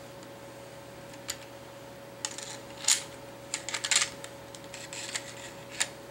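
Metal clicks and rattling of a Remington 870 12-gauge shotgun's forend and action-bar assembly being slid back onto the magazine tube into the receiver: one click about a second in, a burst of clattering clicks from about two to four seconds in, and another click near the end.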